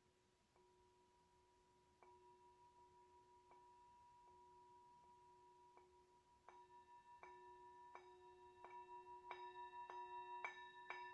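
Faint, soft strikes on ringing metal sound-bath instruments, each note sustaining. The strikes come about once a second at first, then grow faster and louder past the midpoint as higher pitches join in.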